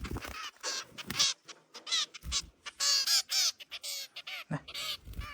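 Fledgling birds giving repeated harsh begging calls while being hand-fed.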